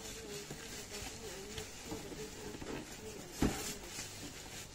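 Packing material and cardboard rustling and knocking as parts of a garment steamer are pulled from its box, with one louder thump about three and a half seconds in.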